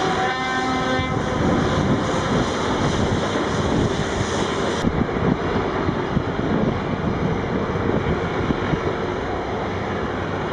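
Steady din of a tracked Sandvik mobile rock crusher running while an excavator feeds it, with a horn sounding for about a second near the start. About five seconds in the sound changes abruptly to a different, clattering quarry-machinery noise.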